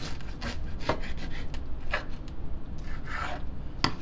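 A knife cutting through a toasted meatball sandwich on a wooden cutting board, a run of uneven scraping strokes, with a sharp tap near the end.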